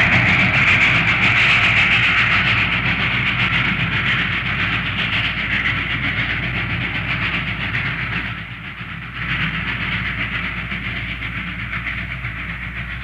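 Steam locomotive in a railyard: a loud, sustained rushing noise over a low rumble, which drops away briefly about eight and a half seconds in, then resumes and fades near the end.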